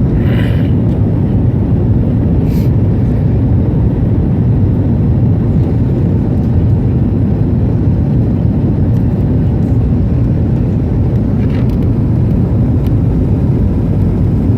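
Steady low rumble of airliner cabin noise, the engines and airflow heard from inside the plane.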